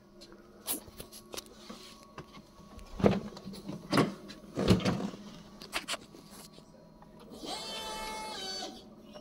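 Loud knocks and clunks from the cab of a Linde E16P-01 electric forklift, then, late on, its hydraulic pump motor whines steadily for about a second and a half as the lift mast is worked.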